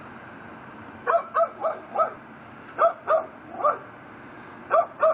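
Pit bull barking repeatedly, starting about a second in, in quick runs of two to four barks with short pauses between them.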